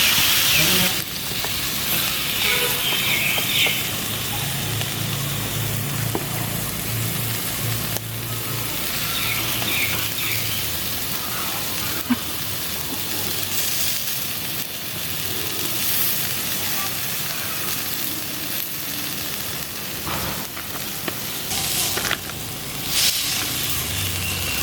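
Fish frying on a hot stone, sizzling steadily.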